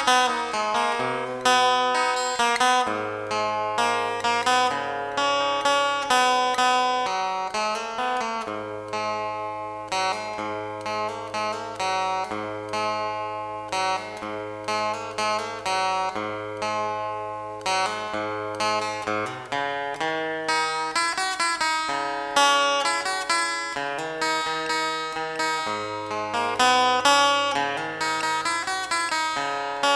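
Background music: plucked acoustic guitar with a sustained bass line, the notes changing steadily.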